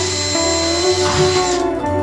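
A drill spins up to a high, steady whine and stops about a second and a half in, over background music.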